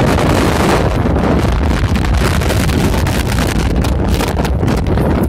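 Wind buffeting the phone's microphone: a loud, steady rumble with constant gusty crackle.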